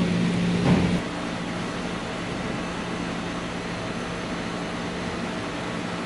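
Steady mechanical hum and hiss of background noise. It is louder, with a low drone and a short louder sound, for about the first second, then changes suddenly to a quieter, even hum.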